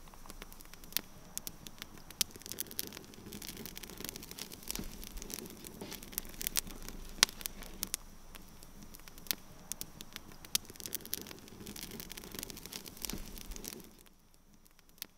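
Wood fire crackling in a fire pit: irregular sharp pops and snaps over a low hiss. It falls much quieter near the end.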